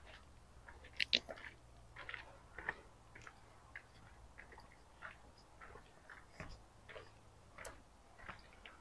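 Footsteps in sandals crunching and clicking on a stony trail, about two steps a second, the sharpest crunches about a second in.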